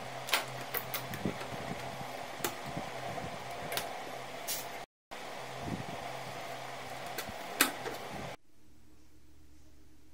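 Scattered sharp clicks and knocks of parts being fitted by hand around a motorcycle carburettor, over a steady background hum. About eight seconds in, it cuts to quiet room tone.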